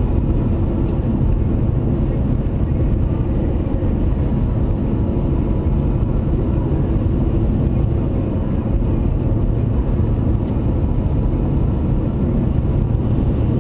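Steady road and engine noise inside a moving car's cabin: an even low rumble that holds level throughout.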